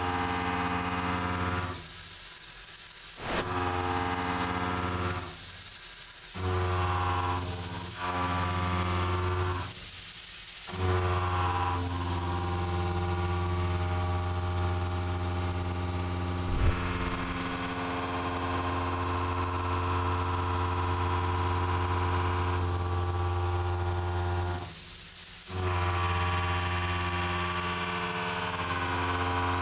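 Background music: sustained synthesizer chords that change every few seconds, with a few short breaks, over a steady high hiss.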